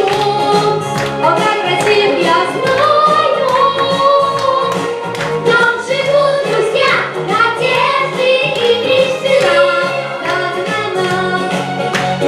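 A song: a high voice singing a melody over a backing track with a steady beat.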